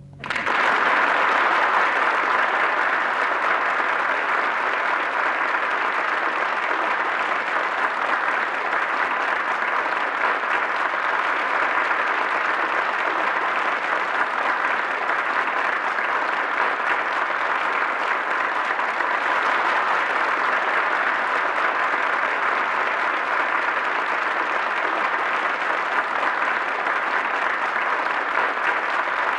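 A large audience applauding. The applause starts suddenly as the sung aria ends and stays steady.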